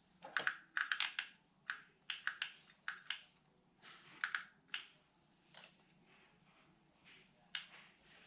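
Irregular sharp clicks and taps of small hard objects being handled, about a dozen in the first five seconds and one more near the end, over a faint steady hum.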